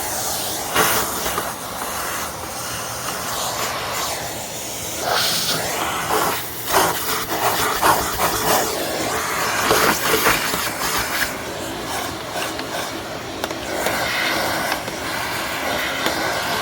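A vacuum cleaner running steadily, its motor humming under a hiss of rushing air, with uneven louder surges of suction through the middle.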